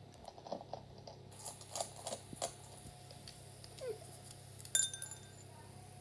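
Puppy eating and moving about at its bowls: light scattered clicks and crunches in the first half, then one sharp, ringing metallic clink against a stainless steel bowl a little before the end.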